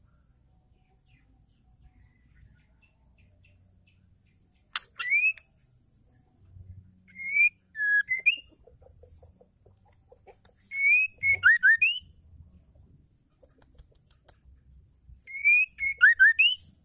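White-rumped shama singing: four short bursts of clear whistled phrases, each about a second long with quick upward-sweeping notes and high twittering, separated by pauses of two to three seconds.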